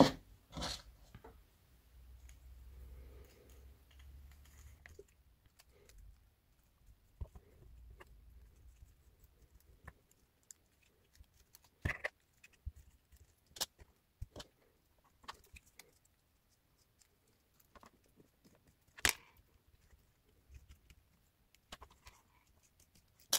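Sparse, faint clicks and taps of hands handling a small plastic-framed FPV drone while taking it apart, with a few sharper clicks of parts and connectors coming loose.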